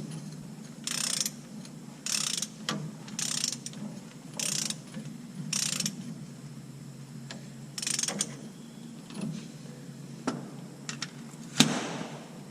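Hand ratchet wrench clicking through six short strokes about a second apart as a fastener on the rear differential is tightened, followed near the end by a single sharp metallic knock.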